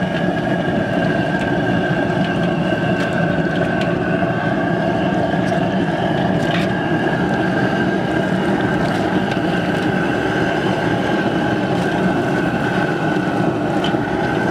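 Outdoor propane burner under a crab-boiling pot running with a steady rushing noise and a faint even whistle on top, with a few light knocks.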